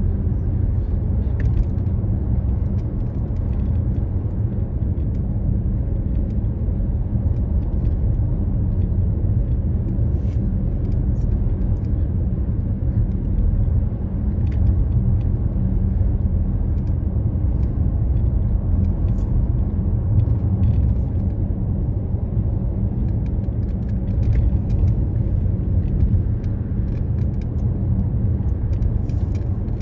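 Car cabin noise while driving on a freeway: a steady low rumble of tyres on pavement and the engine, with a faint constant hum.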